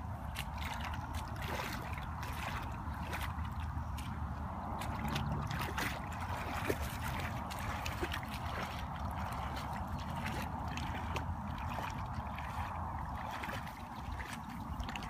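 Water trickling and splashing, a steady wash of sound with scattered small ticks.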